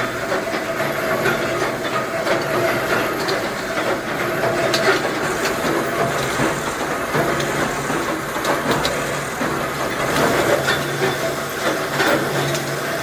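Ammunition production machinery running steadily, with a constant hiss and many scattered clicks and clacks.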